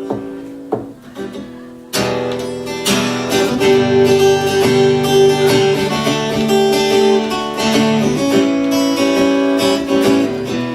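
Acoustic guitar being strummed with no singing. A chord rings and fades over the first two seconds, then a hard strum about two seconds in starts a steady run of strummed chords.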